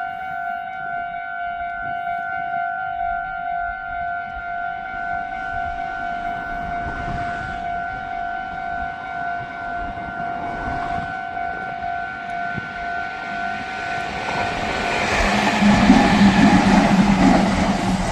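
Japanese level-crossing warning bell ringing steadily, while a Meitetsu Nagoya Main Line local electric train approaches and runs past the crossing, its noise building from about three-quarters of the way in and loudest near the end.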